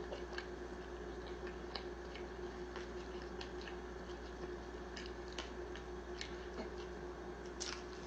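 Faint, irregular wet clicks and smacks of someone chewing food, over a steady background hum.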